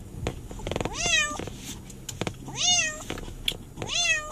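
Domestic cat meowing three times, about every one and a half seconds, each call rising then falling in pitch: an unhappy cat shut in a carrier at the vet.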